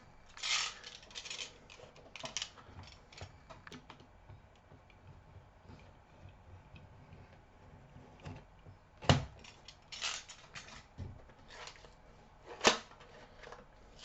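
Handling noise as a 2.5-inch SSD is taken out and handled: light clicks, rubbing and rattles of small plastic and metal parts, with two sharper clacks about nine and twelve and a half seconds in.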